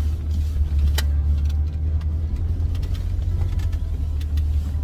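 Jeep Wrangler JK running at low crawling speed, heard from inside the cab as a steady low rumble, with a sharp knock about a second in and a few lighter ticks.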